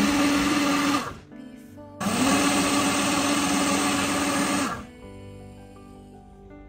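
Doshio cooking blender's motor blending hot soy milk in pulses: it runs until about a second in, stops, then spins up again a second later and runs steadily for nearly three seconds before winding down. This on-off blending is the machine's late stage of the soy-milk cooking programme. Faint background music follows.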